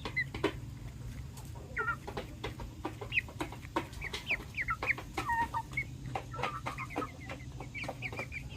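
Silkie chickens clucking and peeping, with many short high chirps scattered throughout, among frequent small clicks.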